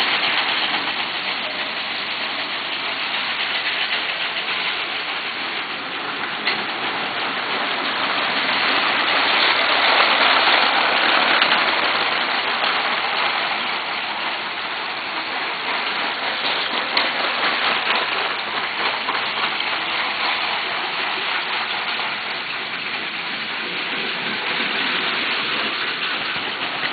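Lego 12-volt trains running on plastic track: a steady rattling whir of small motors and plastic wheels on the rails, swelling as a train passes close about ten seconds in.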